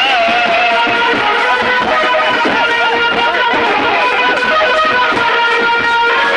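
Music with a guitar-like plucked or electric melody over a steady beat, played for dancing.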